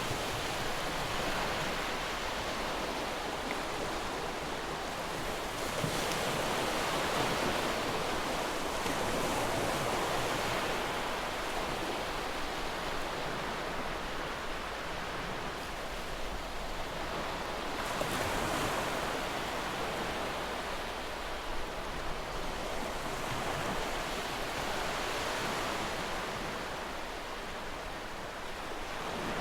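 A steady rushing noise with no distinct tones that swells and ebbs slowly every few seconds, like surf.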